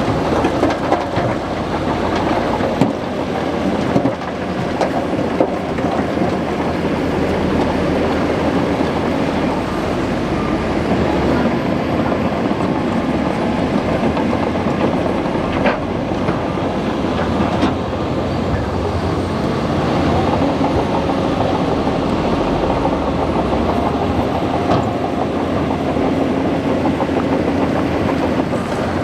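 Bulldozer running steadily under load, its diesel engine droning with scattered metallic clanks and knocks from the working machine.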